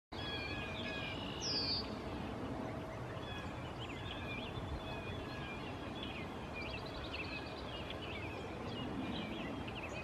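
Several songbirds chirping and singing in short, repeated phrases over a steady low background rumble, with one loud, short downward-sweeping call about one and a half seconds in.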